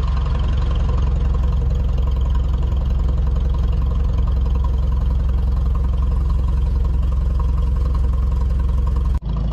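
Tractor engine running steadily at an even speed, with a deep low drone. It breaks off for an instant near the end.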